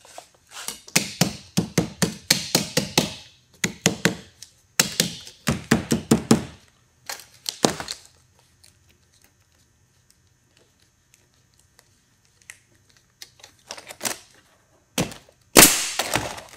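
Hammer tapping to fasten a pleated metal corner flashing piece: quick runs of light strikes, a pause of several seconds in the middle, and a few harder blows near the end.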